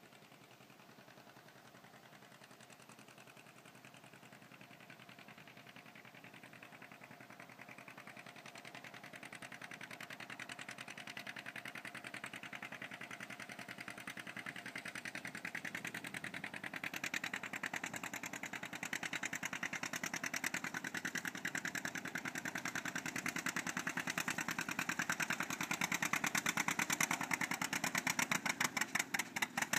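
John Deere A's two-cylinder engine popping with a steady beat under heavy load as the tractor pulls a weight-transfer sled, growing louder as it approaches.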